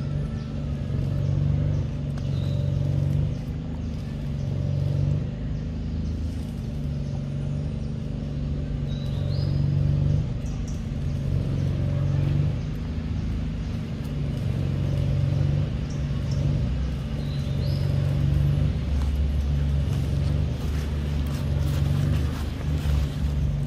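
A steady low rumble, engine-like, rises and falls slightly throughout. A short rising bird chirp sounds every few seconds. Sharp wet clicks of a macaque biting and chewing mango come in a cluster near the end.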